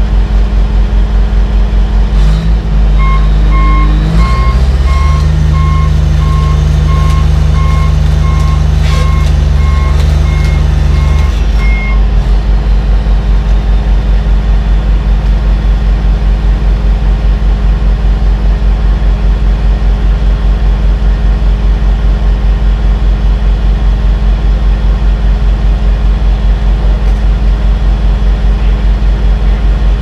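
John Deere 850J crawler dozer's diesel engine running with a steady, pulsing drone. From about three seconds in, a backup alarm beeps about twice a second for some nine seconds while the engine pulls harder to move the machine, then the engine settles back to its steady idle.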